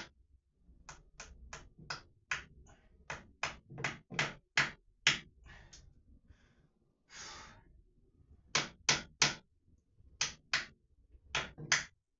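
Hammer driving a stubborn small nail into the wall: runs of sharp strikes, about three a second, broken by short pauses, with one brief rushing sound about seven seconds in.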